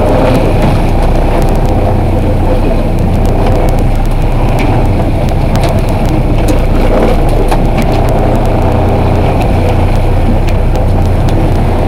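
Loud, steady low drone of a game-fishing boat's engine running, with a few faint knocks.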